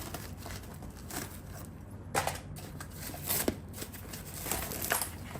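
Scissors snipping and plastic packaging crinkling in a few short, sharp snaps and rustles.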